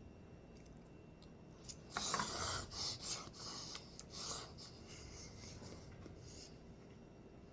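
Eating sounds from someone tasting Maruchan beef-flavoured ramen noodles: a run of short, noisy bursts from about two to four and a half seconds in, faint otherwise.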